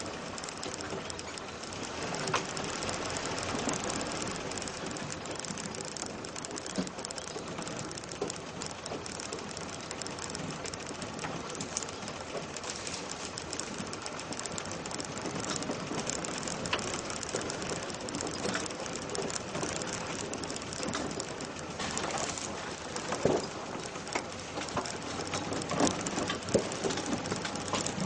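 Off-road vehicle driving slowly along a bumpy dirt track: a steady noisy rattle and rumble, with several sharp knocks from bumps near the end.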